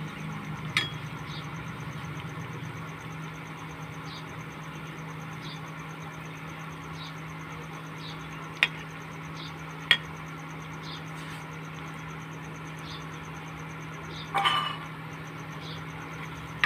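Flour-batter fritters (nonbari) deep-frying in hot oil in a kadhai, sizzling steadily over the steady hum of an electric cooktop. A metal slotted spoon and knife click sharply against the pan a few times, with a short clatter near the end.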